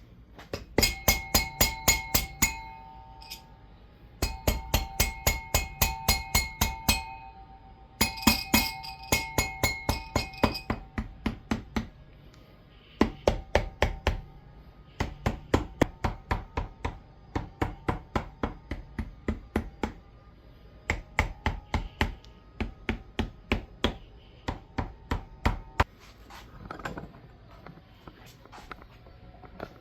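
Rapid, even metallic clicking, about six clicks a second, in bursts of two to three seconds with short pauses between. During the first few bursts the metal rings with a clear tone.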